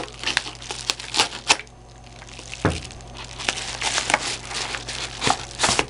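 Utility knife slitting the edge of a padded kraft mailer, then the paper envelope crinkling and rustling as it is pulled open. Short crackles come thickly at first, ease off around two seconds in, then pick up again.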